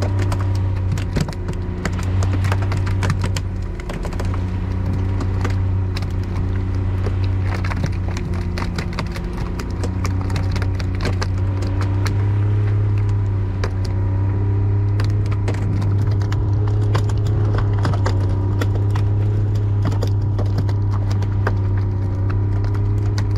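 Small fishing boat's motor running steadily at trolling speed, a low even hum, with many irregular sharp knocks and clatters over it.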